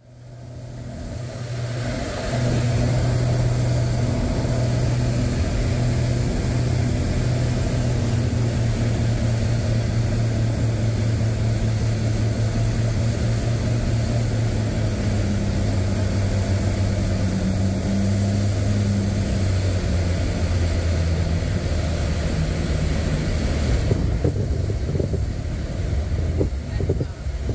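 Twin piston engines of a Beechcraft Baron running steadily, heard from inside the cockpit on approach to land, fading in at the start. Partway through, the engine tone drops lower as power is pulled back. The sound thins again near the end, where a few irregular knocks come in as the plane nears the runway.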